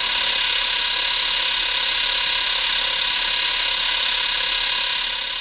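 Mecha King Ghidorah sound effect: a steady mechanical whirring hum with a hissing edge, starting to fade away near the end.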